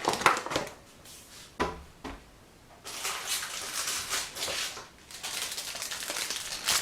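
Sugar poured from a packet into a mixing bowl: a few light knocks, then about three seconds in a steady grainy hiss that runs on for about four seconds.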